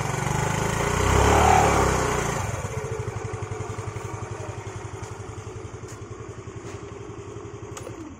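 Yamaha Ray ZR Street Rally Edition scooter's single-cylinder four-stroke engine, heard close to the exhaust: a blip of the throttle peaks about a second and a half in, then it settles back to a steady, pulsing idle. Right at the end the key is turned and the engine begins to shut off.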